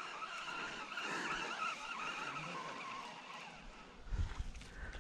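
Faint steady whir with a wavering high tone, as of a baitcasting reel being wound in to retrieve a lure, fading after about three seconds. A few low thumps of handling follow about four seconds in.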